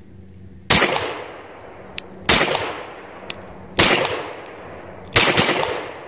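Glock 19 Gen 2 9mm pistol firing five shots, about a second and a half apart, with the last two in quick succession. Each shot rings out with a short echo, and fainter sharp cracks fall between the shots. After the last round the slide locks back on the empty magazine.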